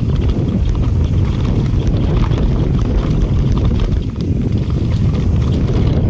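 Mountain bike riding down a dry dirt singletrack: heavy wind rumble on the action camera's microphone over the tyres rolling on dirt and leaves, with short clicks and rattles from the bike over the rough ground.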